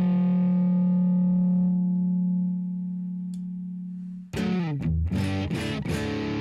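Electric guitar played through the Poison Noises Crook overdrive pedal, which the host believes is a heavily modified OCD, with its gain set low. A held note rings out and slowly fades for about four seconds. Then a quick phrase starts, with a note sliding down and a few short stabbed notes.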